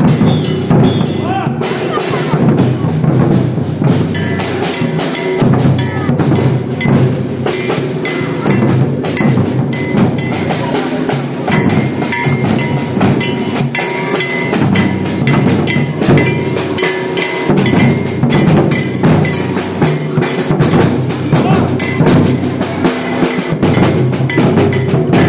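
Maracatu de baque virado percussion group playing a dense, continuous rhythm: deep alfaia bass drums under rapid snare strokes, with a ringing metal bell on top.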